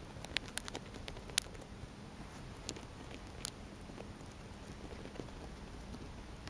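Hamster nibbling and chewing a piece of food: faint, crisp little clicks come irregularly over the first few seconds, the sharpest about a second and a half in, then fewer.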